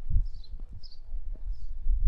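A small bird calling, short high chirps repeated about twice a second, over a low irregular rumble with soft thumps.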